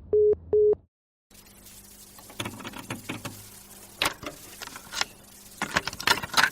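Three short telephone beeps at one pitch as the call cuts off. After a brief silence come irregular clicks and taps over a faint low hum.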